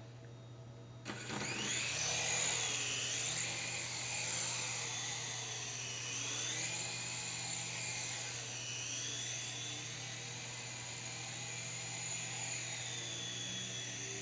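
Syma S107G mini coaxial RC helicopter spooling up about a second in and flying: a high electric motor-and-rotor whine whose pitch rises and falls with the throttle.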